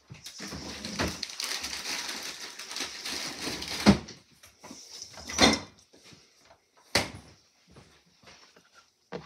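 Spinach and feta filling being stirred in a hand-held stainless-steel mixing bowl: a continuous scraping and squelching for about four seconds, then a few separate knocks of the utensil against the bowl near 4, 5.5, 7 and 9 seconds in.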